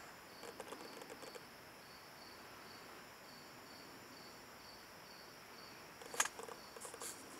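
Faint insects chirping in a steady, even pulse, high-pitched. A few soft clicks near the start and one sharp click about six seconds in.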